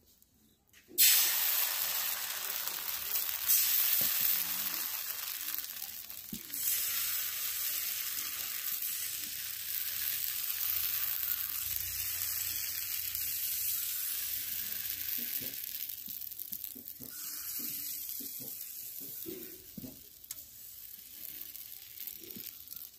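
Rice-flour and milk pitha batter hitting a hot, oiled iron kadai and sizzling. It starts suddenly about a second in, is loudest for the first few seconds, then settles into a quieter frying sizzle that fades toward the end as the thin pancake sets.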